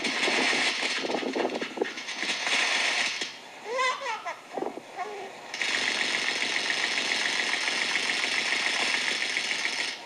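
Fawn-breasted bowerbird singing a song made of mimicked construction-site noise: a rough, machine-like rattle, a few quick whistled sweeps up and down about three and a half seconds in, then a steady mechanical hiss from just past halfway on.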